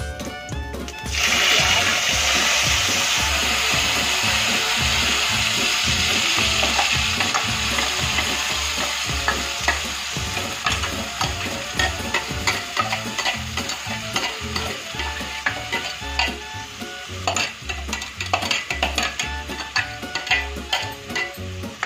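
Ground onion, green chilli, ginger and garlic paste hitting hot ghee in an aluminium kadhai: a loud sizzle starts suddenly about a second in and slowly dies down. A metal spoon stirs and scrapes against the pan, with the clicks growing more frequent toward the end.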